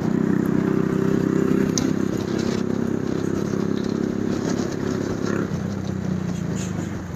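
Hi Speed Infinity 150cc motorcycle's engine, fitted with a PZ30 carburettor, running steadily, dropping slightly in level near the end.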